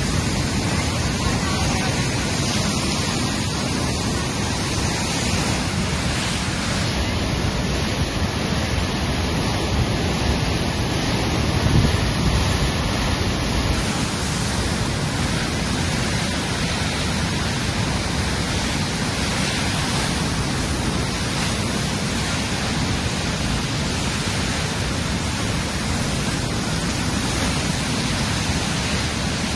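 South Fork Stillaguamish River in record flood, its whitewater rapids rushing in a steady, heavy wash of noise, with a brief louder surge about twelve seconds in.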